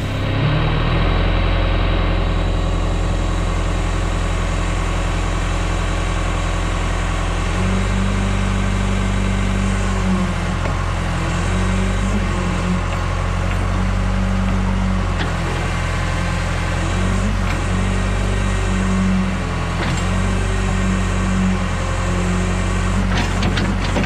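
John Deere 410B backhoe's diesel engine running steadily as the hydraulic boom swings and lowers the bucket. Its note rises and strengthens about eight seconds in and rises and falls with the work after that. Near the end there is a quick run of sharp cracks as the bucket meets the brush.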